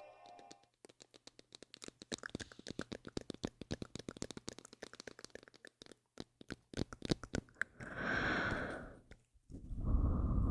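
Close-miked ASMR trigger sounds: rapid, irregular crackling clicks, then a brief hiss about eight seconds in, and a steadier noise starting near the end. The intro music fades out within the first second.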